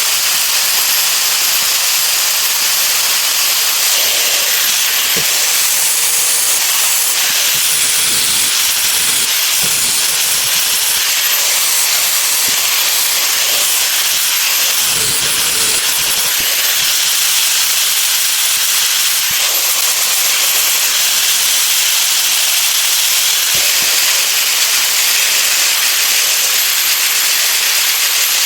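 A loud, steady hiss with no change in level throughout.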